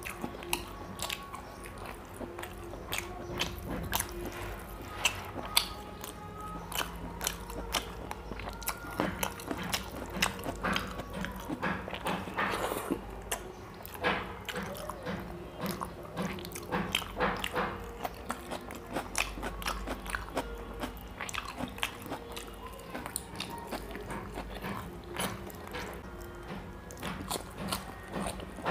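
Close-up eating sounds: wet chewing, lip smacking and mouth clicks while eating chicken curry and rice by hand, in a quick, irregular run.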